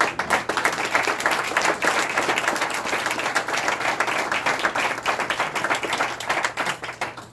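A roomful of people applauding, steady close-packed hand clapping that stops suddenly near the end.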